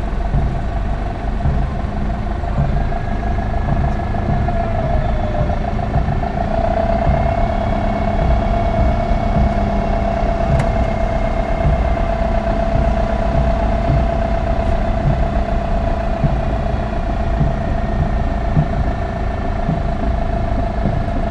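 Engine of a 1977 VW LT 31 fire-service vehicle running at walking pace, heard from inside its cab. A low rumble runs under a steady whine that rises a little in pitch about six seconds in.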